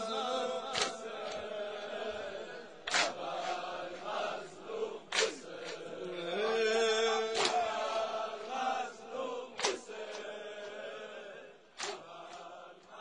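Wordless mournful chanting over a sustained drone, struck by a sharp beat about every two seconds, fading out near the end.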